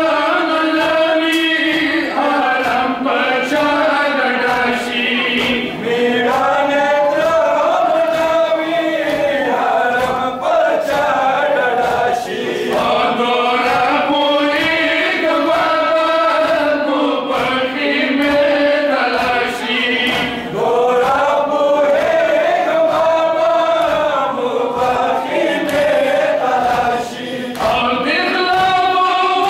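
A crowd of men chanting a Muharram mourning lament (nauha) together in unison, with frequent regular slaps of hands striking chests (matam) keeping the beat under the singing.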